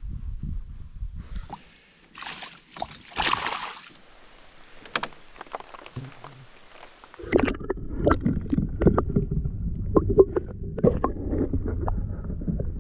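Water splashing and knocks from handling in a canoe while a small bass is landed and released. In the second half there is a long stretch of muffled rumbling with many small clicks.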